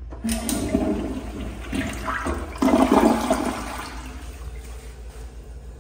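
Toilet flushing: a sudden rush of water about a quarter second in, surging louder at about two and a half seconds, then easing off as the bowl drains and refills.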